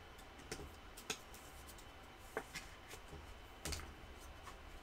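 Faint, scattered clicks and light rustles of hands handling a trading card in a clear plastic sleeve.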